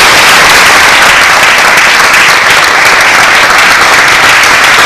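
Audience applauding, a loud, steady clapping of many hands.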